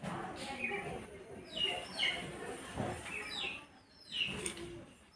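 Pet parrot making a few short chirps that fall in pitch, about four through the stretch.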